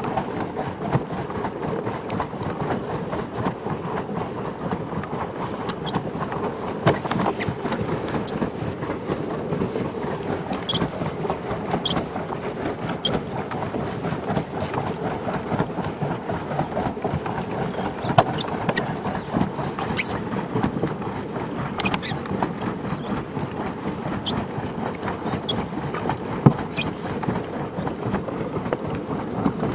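Pedal boat's paddle wheel churning the lake water as it is pedalled, a steady splashing with scattered small clicks and squeaks.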